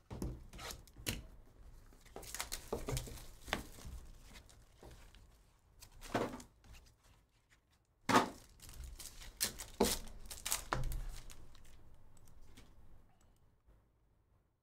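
Plastic trading-card pack wrappers being torn open and crumpled by hand: irregular crinkling rustles, the loudest starting sharply about eight seconds in, dying down near the end.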